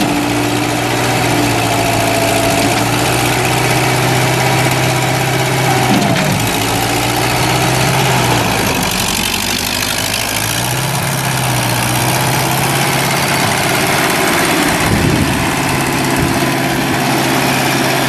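Mustang 1000 skid steer's Wisconsin four-cylinder gas engine running steadily, its pitch dipping and changing a few times as the machine lowers its bucket and drives.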